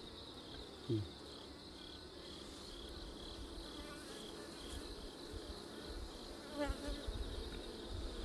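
Honeybees buzzing around an opened hive during a frame inspection, with one bee buzzing louder as it passes close, about six and a half seconds in. Crickets chirp steadily in the background.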